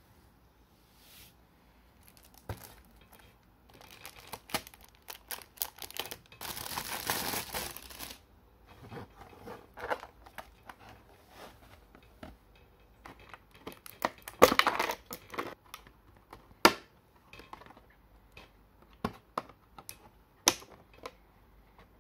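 Cardboard toy box and its plastic blister tray being handled: crinkling and rustling, with a longer rustle about a third of the way in. Scattered sharp clicks and snaps follow as the figure and its parts are pried out of the plastic tray.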